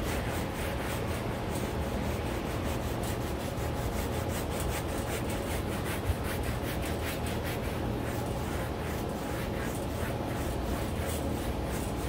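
Handheld detailing brush scrubbing a carpeted car floor mat in rapid back-and-forth strokes, several a second, working stain extractor into the soiled fibres.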